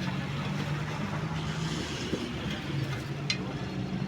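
Vehicle engine running steadily in the background, with a short click a little over three seconds in.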